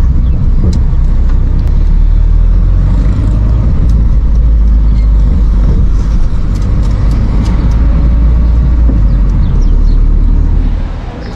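Steady low rumble of a car driving, heard from inside the cabin: engine and road noise, with a few light clicks and rattles. It drops in level near the end.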